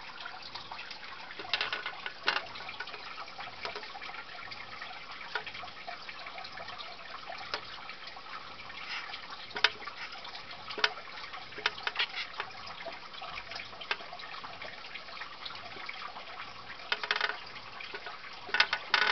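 Scattered light scratches and clicks in a plastic hamster cage with wood-shaving bedding, over a steady hiss, with small clusters of clicks about two seconds in and again near the end.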